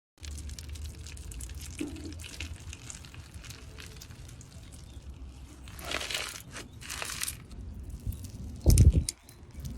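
Crunchy slime being worked by hand, with repeated small crackles and wet squishes, and a loud low thump near the end.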